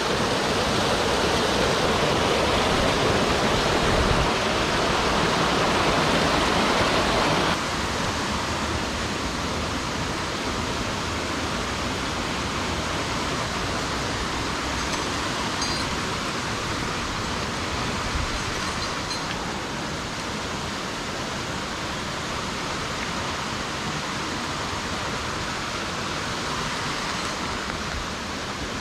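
Steady rush of a mountain waterfall, dropping suddenly to a quieter, even rush about seven and a half seconds in.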